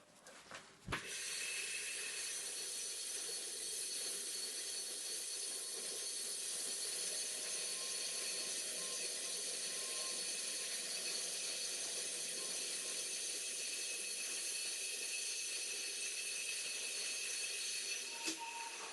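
A click, then a steady hiss that runs evenly for about seventeen seconds and stops shortly before the end.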